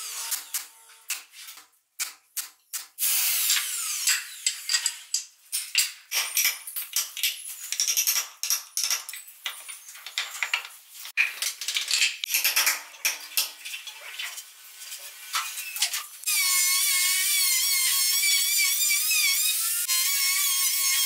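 Irregular scraping, tapping and short bursts of tool work on hardwood. About 16 s in, an electric router starts cutting a hardwood board: a steady high whine whose pitch wavers slightly under load.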